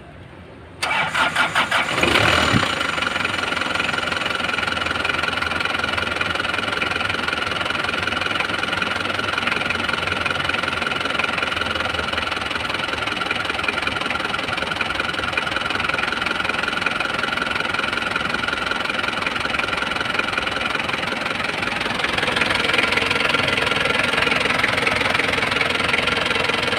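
Car engine cranked and catching about a second in, then idling steadily with a steady whine over it. The engine is running while water is poured into the radiator, to push the dirty coolant out of the engine block.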